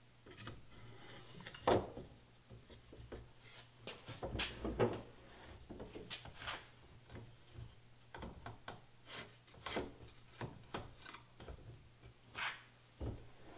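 Handling noises of an AR-15 upper receiver and barrel assembly being set into a bench vise in its receiver block: scattered light knocks, clicks and rubs, the sharpest about two, five, ten and twelve and a half seconds in.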